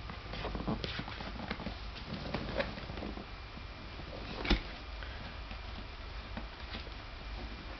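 Box and packaging being handled and opened: scattered rustles and light clicks, with one louder knock about four and a half seconds in.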